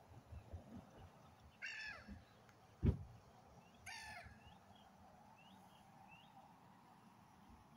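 Gulls calling over the water: two harsh calls a couple of seconds apart, with faint short high chirps in the background. A single thump about three seconds in is the loudest sound.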